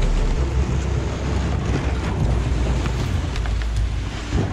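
Wind buffeting the camera microphone with a steady low rumble, over scattered scrapes and knocks of a plastic sit-on-top kayak being slid down a dirt riverbank, the loudest knocks near the end.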